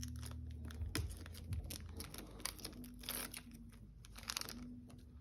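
Trading cards and foil booster-pack wrappers being handled: scattered crinkles and light card clicks, over a faint low hum.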